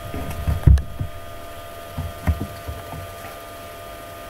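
A few dull knocks: a cluster just under a second in, then two more around two seconds in, over a faint steady background hum.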